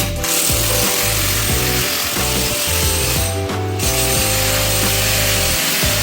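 A power tool working wood gives a steady hiss that stops for a moment a little past three seconds in and then starts again, over background music.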